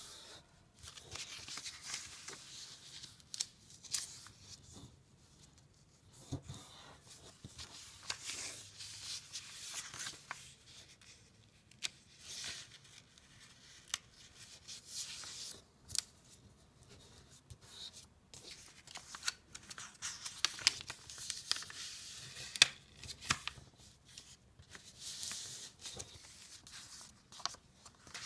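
A sheet of paper being folded and creased by hand: dry rustling and sliding in irregular short bursts, with sharp little taps and clicks as the folds are pressed flat.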